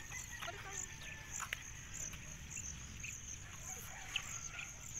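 Insects chirping in a steady high pulsing trill, about two pulses a second, over a low wind rumble on the microphone. Faint children's voices come from a distance, and there is a single sharp tap about a second and a half in.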